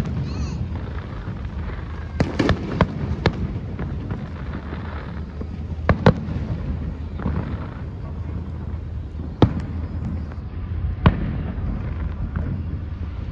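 Aerial fireworks shells bursting in the distance as sharp bangs: a quick cluster of about five a couple of seconds in, a pair about six seconds in, then single bangs near the end. A steady low rumble continues beneath them.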